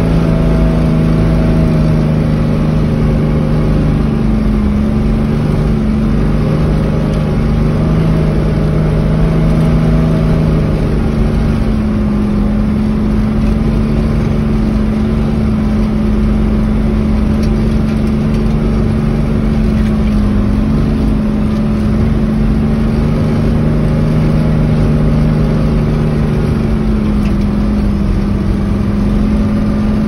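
Off-road vehicle's engine heard from inside its cab while driving: a loud, steady drone whose pitch shifts slightly about a third of the way in.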